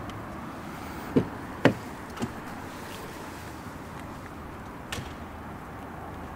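A few sharp plastic clicks from the car's fuel filler flap being pressed: two about half a second apart a little over a second in, a fainter one just after, and another near the end, over a steady low background noise.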